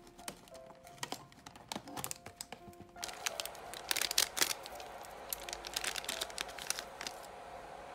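Foil-lined tea sachet being torn open and crinkled by hand: scattered crackles at first, then a dense run of crackling from about three seconds in. Soft background music plays under it.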